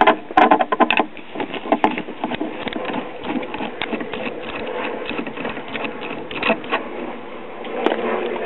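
A nut driver working a quarter-inch chassis mounting bolt loose from the wooden cabinet base of an old tube radio: rapid, irregular metallic clicking and scraping of the tool on the bolt head and washer, steady throughout.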